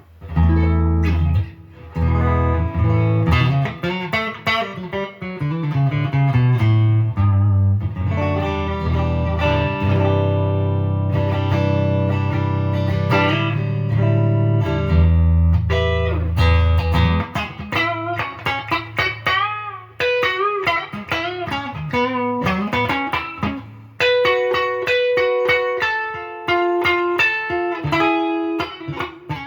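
Gibson Les Paul 50s Standard with P-90 pickups played through an amp, both volumes at 9 and both tones rolled down to 7. Low, full chords fill the first half; the second half turns to single-note lead lines with string bends.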